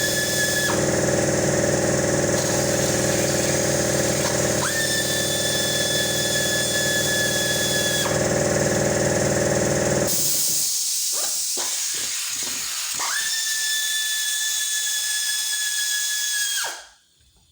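Power tool whining in three runs, each rising in pitch as it spins up and dropping away as it is released. A steady low machine hum underneath stops about ten seconds in.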